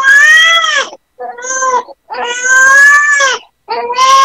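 Newborn baby crying in repeated wails, four in a row, each about a second long with short breaths between: an irritated newborn fussing at the breast during a latch attempt.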